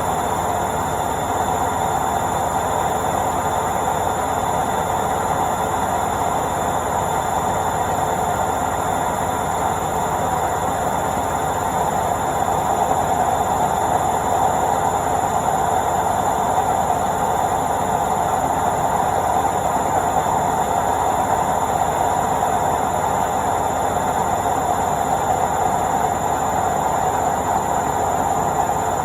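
Washing machine on its spin cycle: a steady mechanical whir, a little louder from about twelve seconds in.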